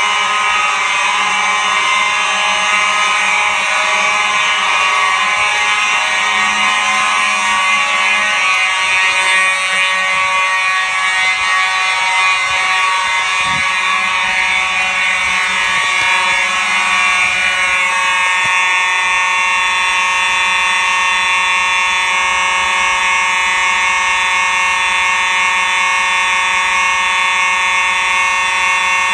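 Simplex fire alarm horns sounding continuously and loudly during a system signal test. Several horns at different pitches blend into one dissonant chord, and the mix of tones shifts about two-thirds of the way through.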